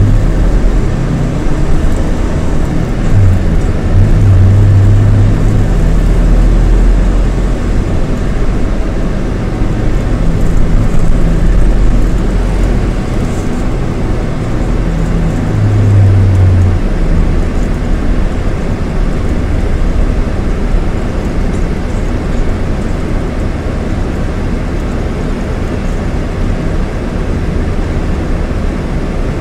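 Scania DC9 230 hp five-cylinder diesel engine of a Scania K230IB coach running on the move, a steady deep rumble that swells and eases a few times.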